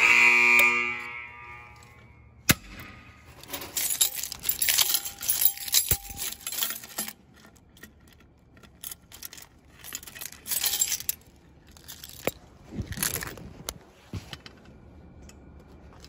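A fire alarm signal sounds loudly at the start and dies away over about two seconds. It is followed by irregular metal clicks, clinks and rattling as a manual pull station is handled.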